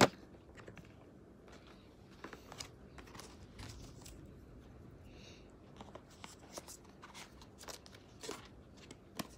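Faint handling noises: scattered light clicks and rustles as a cardboard gift box is picked up and moved about in the hands.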